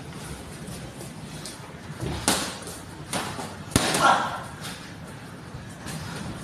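Padded boxing gloves landing punches in a sparring exchange: a few separate thuds, the sharpest about three and a half seconds in, followed by a brief voice.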